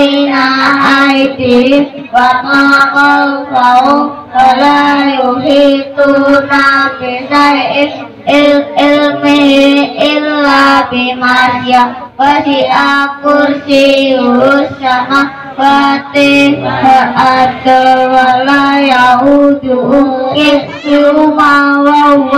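Young boys singing into handheld microphones through a loudspeaker system, over a steady low held note.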